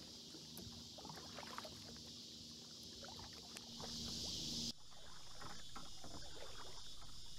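Faint small knocks and water splashes of a kayak being paddled on a river, over a high steady hiss. The background changes abruptly about two-thirds of the way through.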